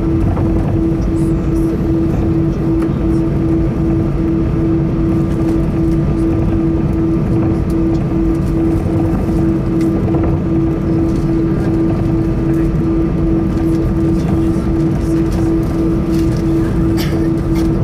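Airbus A320 cabin noise while taxiing: the engines and the rolling airframe give a steady rumble, with a loud humming tone that pulses evenly a few times a second.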